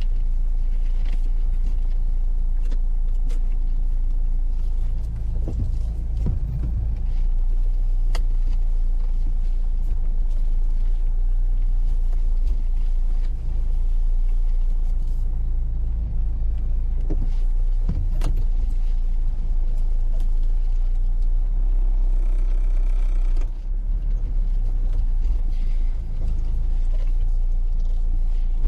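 Car driving slowly on a gravel road, heard from inside the cabin: a steady low engine and road rumble, with a few brief knocks.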